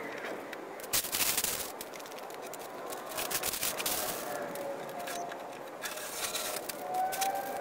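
Sped-up time-lapse workshop sound: a rapid run of crackles, scrapes and clicks, with faint tones gliding up and down.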